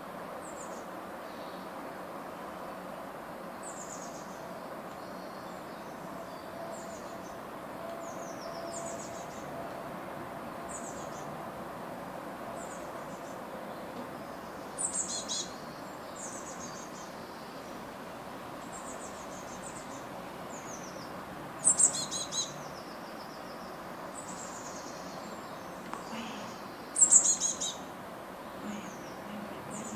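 Blue tits calling around their nest box at fledging time: many short, high, thin chirps that fall in pitch, with louder bursts of calls about halfway through and several more in the second half.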